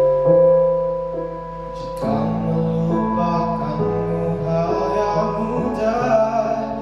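Instrumental accompaniment of a slow pop ballad: held keyboard-like chords, with a fuller backing coming in about two seconds in, leading into the next sung line.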